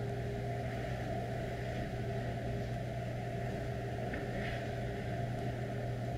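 A steady low mechanical hum, even throughout, with no other sound standing out.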